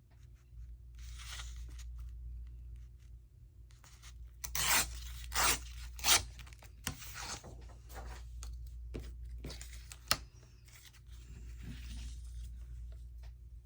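Sheets of craft paper being handled and torn: rustling, then three louder rips close together about four and a half to six seconds in, and a sharp tap near ten seconds.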